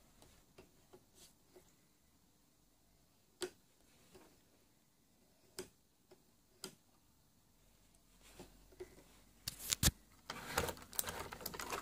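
Scattered sharp clicks a few seconds apart, then a quicker run of clicks and knocks in the last few seconds, from a model train being handled and tried on its track. No steady motor hum is heard: the locomotive does not run.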